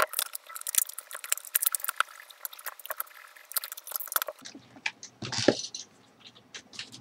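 Many small clicks, crackles and rustles of hands handling wires and small plastic parts during wiring work, with a louder rustle about five and a half seconds in.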